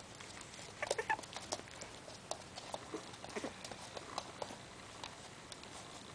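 Maltese puppies shuffling about in a plush dog bed: irregular soft clicks and rustles, with a cluster of louder short sounds about a second in.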